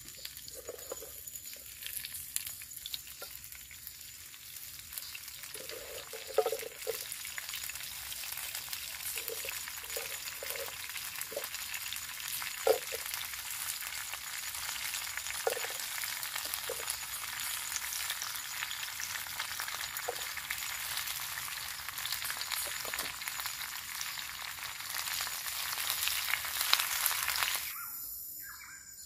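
Food sizzling and frying in a pan, a steady crackling hiss that builds up over the first few seconds and cuts off abruptly near the end.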